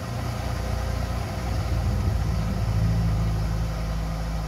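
A car driving past: its engine sound grows louder to a peak about halfway through, then fades.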